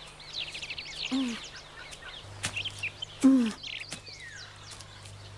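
Cartoon woodland soundtrack of birds chirping and twittering, with a boy's two short pained cries about one and three seconds in, the second the loudest, from a boy sore after a spanking.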